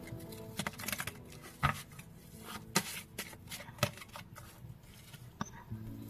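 A deck of fortune-telling cards being shuffled and handled: irregular soft slaps and clicks of the cards, a few sharper ones standing out.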